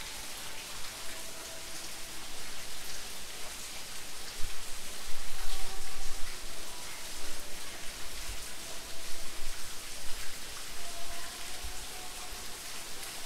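Steady rain falling on brick paving and garden plants, with louder close drips and splashes now and then.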